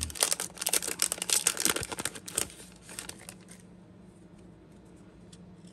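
Crinkling of a trading-card pack's wrapper being handled and torn, a rapid crackle that stops about three and a half seconds in.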